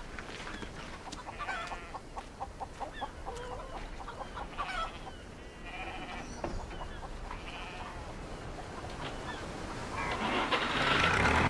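Farmyard poultry calling in several short bursts, with a swelling rush of noise in the last second or so.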